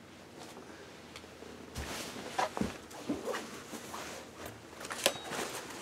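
Rustling and a scattered series of light knocks and clicks from a person moving about close by and sitting down, starting about two seconds in.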